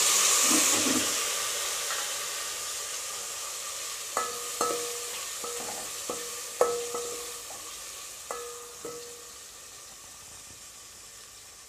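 Chopped tomatoes hitting hot oil and tempering spices in a metal pot, setting off a loud sizzle that slowly dies down as they cook. A metal spoon stirring them knocks against the pot wall several times, each knock ringing briefly.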